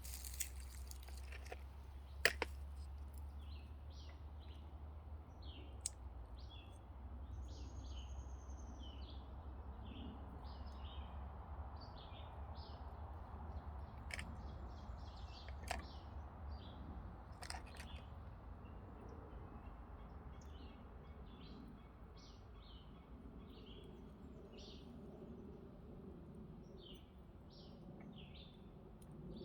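Birds chirping: many short, high chirps repeated throughout, with a few sharp clicks between them and a low rumble that fades out over the first half.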